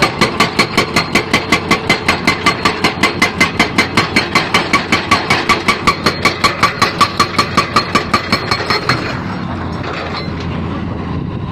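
Excavator-mounted hydraulic breaker hammering at a steady rate of about four to five blows a second, each strike with a metallic ring, over the excavator's running engine. The hammering stops about nine seconds in, leaving the engine running.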